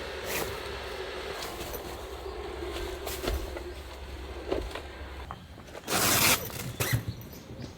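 Air tent being pitched: nylon fabric rustling and scraping under a steady low hum, with one loud brief rush of noise about six seconds in.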